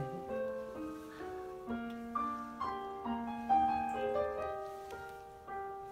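Background piano music: a gentle melody of held notes over soft chords.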